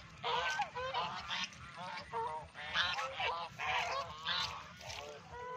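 Domestic geese honking: a steady run of short, bending calls, one after another, some overlapping.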